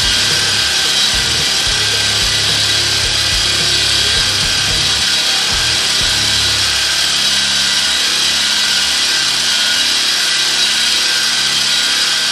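Eastwood Contour SCT surface-conditioning drum sander running steadily with its abrasive drum worked across a flat sheet-metal panel, putting a final polished finish on the metal.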